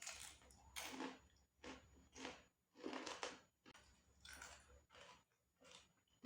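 A person chewing crunchy food close to the microphone: a steady run of crisp crunches, about two a second.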